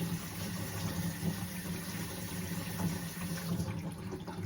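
Water running hard through a sink with a steady low hum, shut off abruptly at the very end: a test of newly replaced drain piping for leaks.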